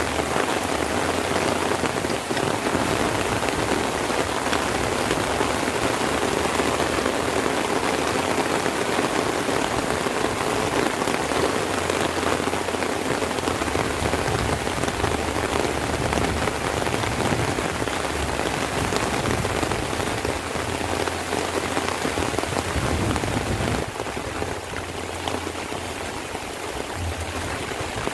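Heavy rain falling steadily: a dense, even hiss of drops hitting the ground. It turns slightly quieter near the end.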